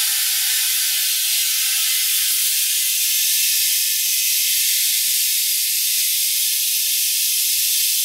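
Compressed air hissing steadily from a lock-on air chuck into a truck tire whose bead has not seated, so the tire is not yet taking air.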